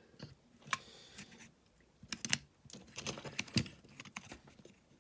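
Small metal and plastic parts of a diecast model car clicking and tapping as they are handled and set down, a string of irregular light clicks.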